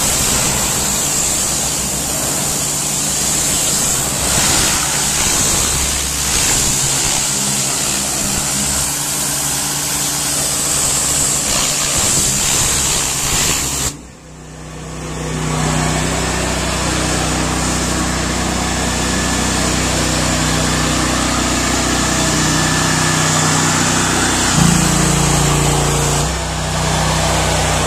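A 7000 PSI gas pressure washer's jet blasting paint off a metal wall: a loud, steady hiss over the running engine. About halfway through it cuts off suddenly, and the pressure washer's Honda GX690 V-twin engine is heard running steadily close up, its pitch shifting briefly a few seconds before the end.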